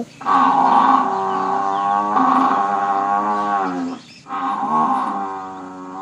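Cow mooing: two long moos back to back, then a third starting past the middle that runs on.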